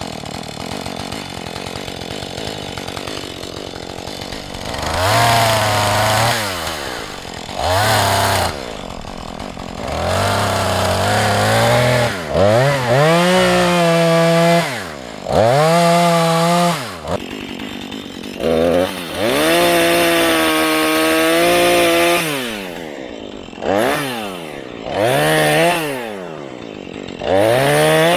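Husqvarna 435 two-stroke chainsaw revved to full throttle in about ten bursts of one to three seconds, dropping back toward idle between them. This is typical of notching a tree with a face cut.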